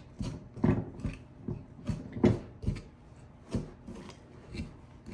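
Sourdough discard being worked into a crumbly biscuit dough in a mixing bowl: a string of irregular knocks and scrapes as the dough is stirred and pulled in from the sides.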